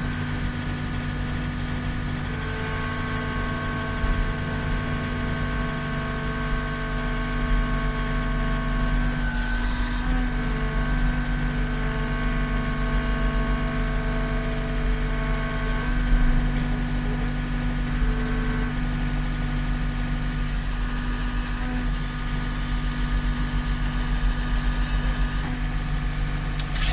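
Heavy vehicle engine running steadily at a constant speed.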